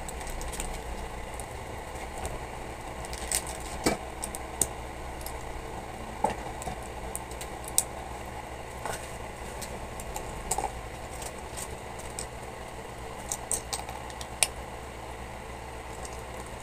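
Plastic LEGO bricks clicking and rattling as they are handled and pressed together: a dozen or so scattered sharp clicks over a steady low hum.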